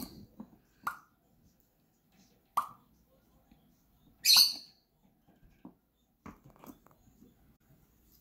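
African grey parrot making scattered short sounds: a few clicks and pops, two short notes, and a harsh hissing burst about four seconds in.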